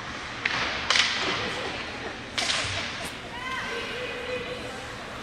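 Ice hockey play in an arena: sharp cracks of sticks hitting the puck and the puck striking the boards, about three in the first two and a half seconds, over steady rink and crowd noise. A voice shouts out about three seconds in.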